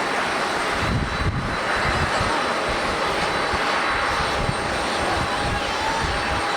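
Airbus A320neo jet airliner's engines running with a steady, loud roar on departure, with wind gusting on the microphone as an irregular low rumble.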